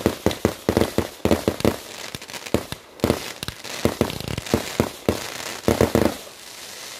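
Consumer fireworks battery (a multi-shot cake) firing shells in quick succession from the ground, with sharp bangs and crackling bursts. The shots come in fast clusters with brief lulls, and thin out to a fainter crackle near the end.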